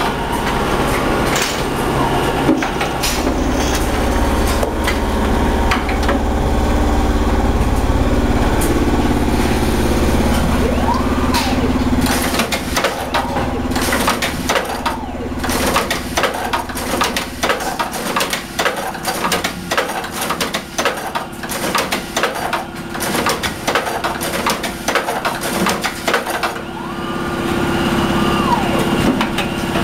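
Frozen-fish slicing machine running: a steady motor hum, then a long run of rapid clattering knocks as its gang of blades chops through the frozen fish.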